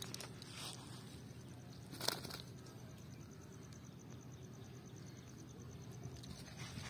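Faint rustling of a cast net's mesh being handled on grass, with one sharper rustle about two seconds in, over a steady low background hum.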